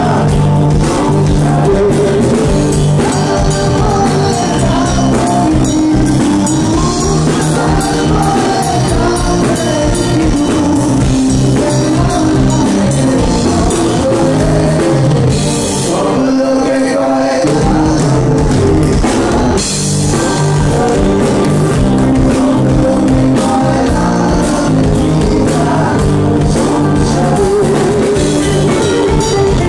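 Live rock band playing: a man singing over acoustic guitar, electric guitar, bass and drums. Just past the middle the bass and drums drop out for about a second and a half, then come back in.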